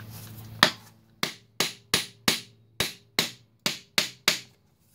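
A hammer striking a white plastic pipe-collar seal driver about ten times, roughly three sharp taps a second, pressing a new rear main seal and its wear sleeve into the rear cover of a Duramax LB7 diesel engine.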